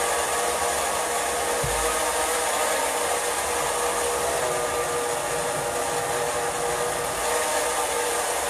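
Countertop blender running steadily at a constant speed, puréeing corn kernels in milk, condensed milk and cream cheese.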